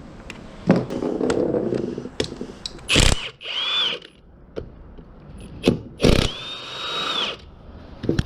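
Handheld power driver spinning 12 mm bolts out of a transmission case in several short runs, its motor whining up, holding and winding down each time. Sharp metallic clicks and knocks of the socket and bolts come between the runs.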